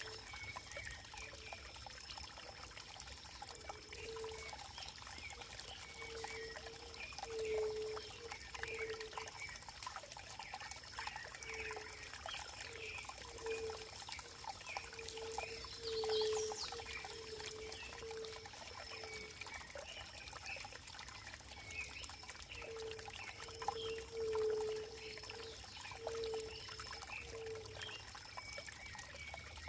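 Running water trickling and pouring steadily, with many small irregular splashes. Through it an animal calls in bouts of short, low, evenly repeated notes, and a faint steady high-pitched tone runs under it all.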